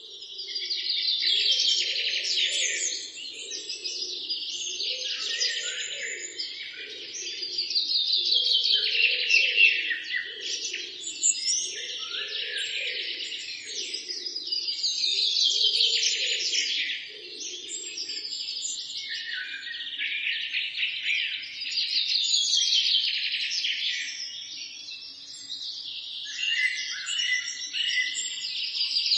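Several songbirds singing in a dense chorus of rapid trills and chirps that swells and ebbs in waves every six to seven seconds. A lower pulsing sound runs underneath until about two-thirds of the way through.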